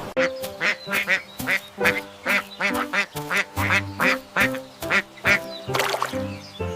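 Ducks quacking in a quick run of short calls, about three a second, over background music with sustained notes.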